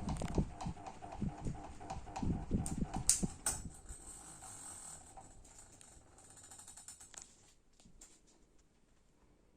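GMC FC-06-90 mini ceiling fan with extended blades: a rhythmic knocking over a steady motor hum. The knocking stops about three and a half seconds in, and the hum fades away over the next few seconds.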